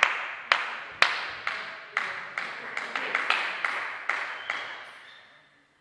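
A few people clapping after a table tennis point, the claps echoing in a sports hall and dying away after about five seconds.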